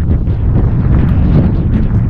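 Strong wind buffeting the microphone in a steady, loud rumble as a storm blows in.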